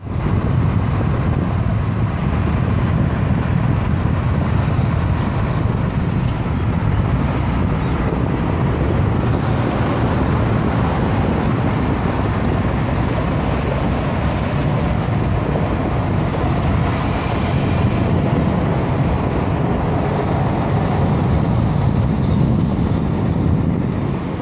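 Steady roar of multi-lane highway traffic, a continuous wash of tyre and engine noise with no single vehicle standing out.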